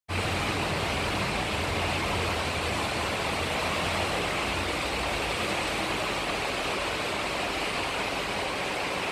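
Heavy typhoon rain pouring down steadily, a dense even hiss, with a low rumble underneath for the first half.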